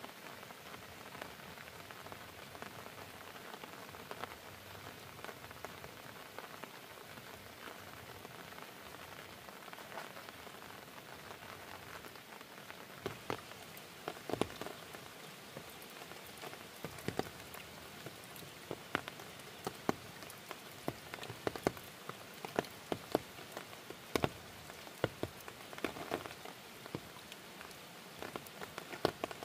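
Rain falling steadily, with sharp individual drops striking a surface more and more often from about halfway through.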